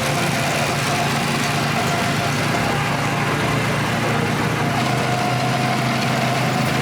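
Small go-kart engines running steadily at a fairly constant pitch.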